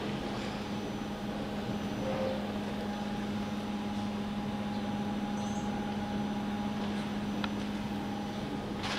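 Steady low electrical hum from powered workshop machinery, with a fainter higher whine held above it; a light click about seven seconds in.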